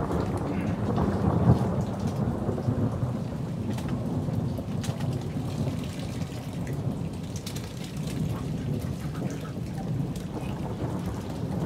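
Thunderstorm: heavy rain falling steadily under a low rolling rumble of thunder that swells in the first couple of seconds, with scattered raindrop ticks throughout.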